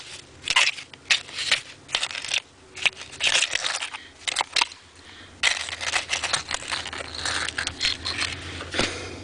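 Digging by hand through dirt and glass in a bottle pit: a string of short, irregular scrapes and clinks, turning into a denser run of scraping about halfway through.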